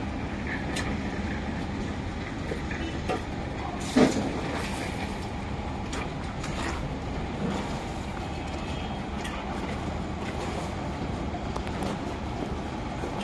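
Steady low rumble of heavy construction machinery, diesel engines running at a busy casting yard, with scattered knocks and one loud bang about four seconds in.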